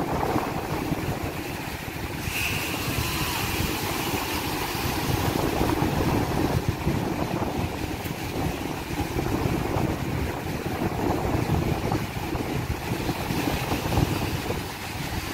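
Surf washing up a sandy beach in small breaking waves, with wind noise on the microphone.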